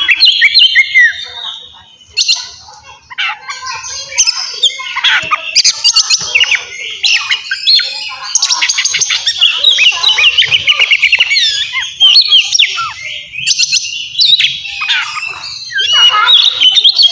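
Oriental magpie-robin (kacer) singing loudly in a long, rapid, varied song of high notes and glides, with a brief lull about two seconds in.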